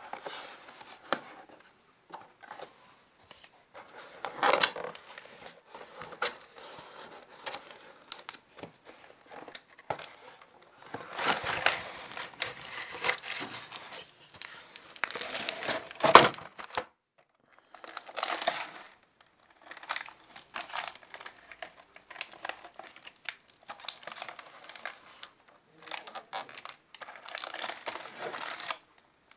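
Packaging being handled, crinkled and torn open in irregular bursts while the blades of a ceiling fan are unwrapped.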